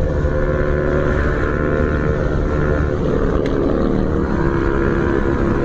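Motorcycle engine running at a fairly steady pitch while riding, with heavy low rumble. A single sharp click comes about three and a half seconds in.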